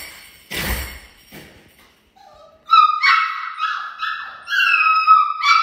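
A puppy whining at a closed front door, a run of high, wavering cries each about half a second long starting a little over two seconds in: the puppy is crying because its owner has just left. Near the start there is a couple of thuds from the front door being shut.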